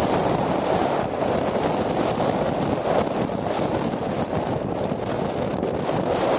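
Steady wind buffeting the microphone: a continuous rushing noise with no distinct events.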